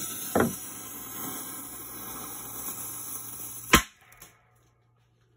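Small firecracker's lit fuse hissing and spraying sparks for about three and a half seconds, then a single sharp bang as the firecracker goes off. The bang is the loudest sound, described as a little loud.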